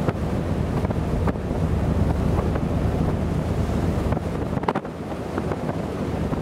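Strong wind buffeting the microphone in a steady low rumble, with a few short pops, over the wash of choppy sea.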